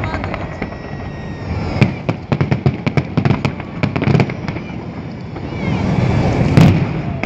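Fireworks salute bursting: a quick run of sharp crackling pops about two seconds in, then a swelling low rumble that ends in a loud boom near the end.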